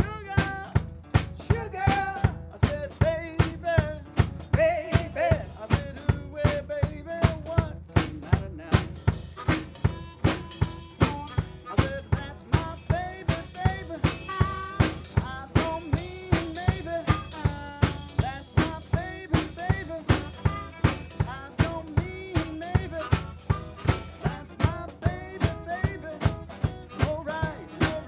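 Live acoustic blues band playing: strummed acoustic guitar over a steady snare drum beat of about two to three strikes a second, with harmonica.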